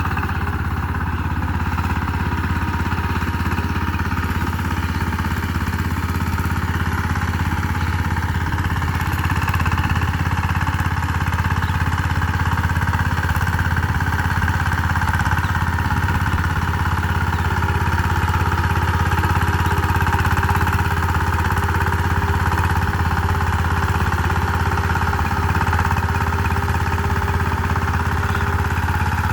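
Power tiller engine running steadily at a constant speed while ploughing.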